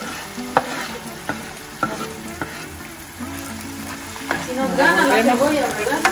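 Chopped tomato, onion, chile and garlic sizzling in hot oil in a pan, stirred with a spoon that knocks against the pan every half second to second. This is the tomato going into the softened onion base to start the sauce.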